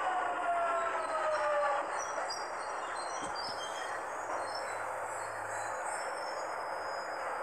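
Underground train moving along the platform: for the first two seconds a motor whine falls slowly in pitch as the train slows, then a steady rushing noise of wheels on rail, with faint short high squeals.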